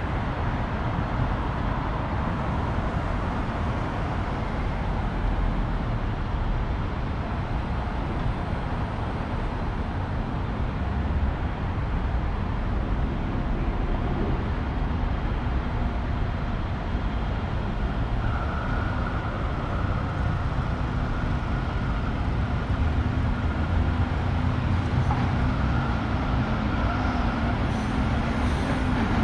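City street traffic: a steady wash of passing cars and engine noise. About two-thirds of the way through, a steady high whine and a low engine hum join it.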